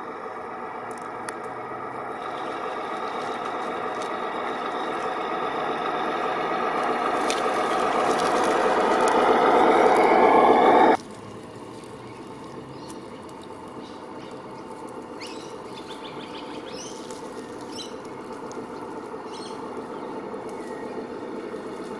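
HG P408 RC Humvee's 550 brushed electric motor and geared drivetrain whining steadily as the truck drives, growing louder as it nears. About halfway through the sound cuts off suddenly and goes on much quieter, with a few short high ticks near the end.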